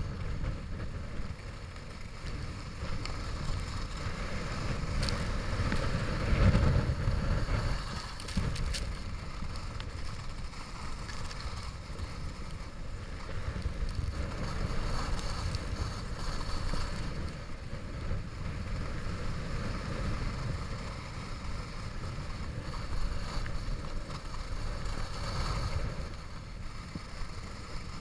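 Skis sliding and scraping over groomed snow on a downhill run, with wind buffeting the microphone; the noise swells with the turns, loudest about six seconds in.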